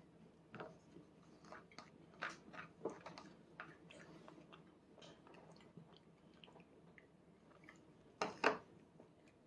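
Faint, scattered mouth clicks and lip smacks of a toddler chewing food: a cluster in the first few seconds and two louder ones near the end.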